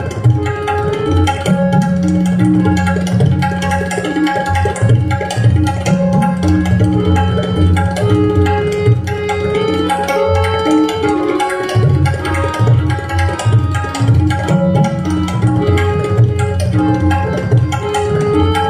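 Tabla solo: fast, dense strokes on the treble drum (dayan) and deep resonant strokes on the bass drum (bayan), the bass tone sometimes sliding up in pitch. Under it a harmonium repeats the lehra melody.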